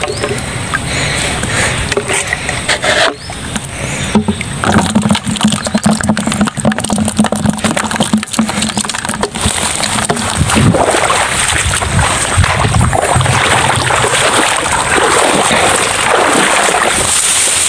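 Knocking and water noises as a perforated PVC-pipe eel trap is handled and emptied into a plastic bucket, with a steady low hum through the middle. Then a continuous rustle of tall grass being pushed through.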